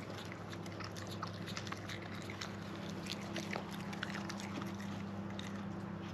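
Raccoon chewing and crunching food close by: a run of small irregular clicks and crackles over a steady low hum.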